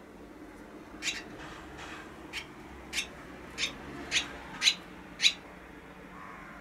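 Barn swallow giving a series of about eight short, sharp chirps, roughly two a second, growing louder toward the end.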